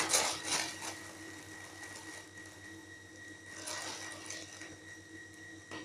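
Packaging rustling and crinkling as a stubborn parcel bag is pulled and worked open by hand, in irregular bursts near the start and again about four seconds in.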